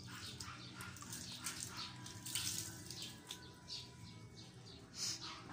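Water scooped from a bucket with a plastic dipper and poured out, in a series of short splashes.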